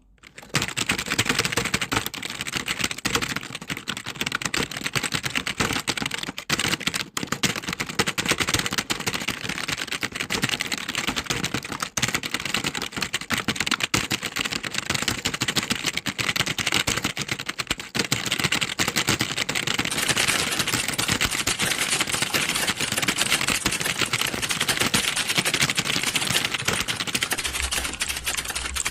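Many computer keyboards typed on at once: a dense, continuous clatter of keystrokes, starting about half a second in.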